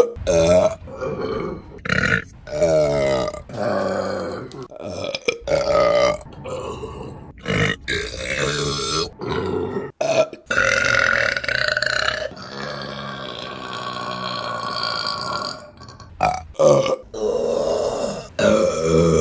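Women burping, one after another in quick succession: many short, loud burps, with a couple of long, drawn-out ones in the second half.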